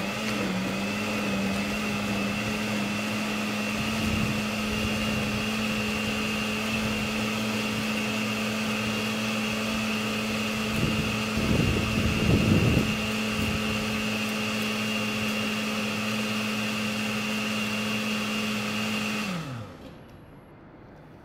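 Electric countertop blender running steadily at a constant pitch, blending milk, with a louder, rougher stretch around twelve seconds in. The motor is switched off about nineteen seconds in and winds down with a falling pitch.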